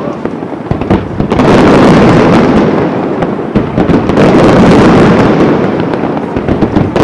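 Aerial fireworks: a dense, continuous barrage of shell bursts and crackling, louder from about a second in.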